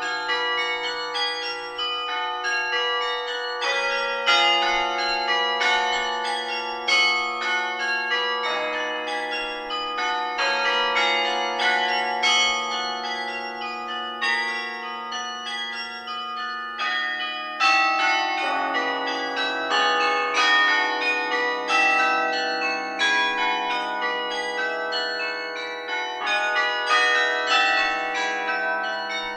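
A carillon played from its baton keyboard: quick runs of struck bell notes over lower bells that keep ringing. Deeper notes come in about four, nine and eighteen seconds in.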